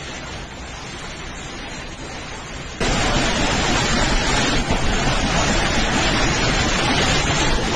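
Violent storm wind rushing steadily, with no tone or rhythm. About three seconds in it jumps abruptly to a much louder, denser rush as debris is blown past.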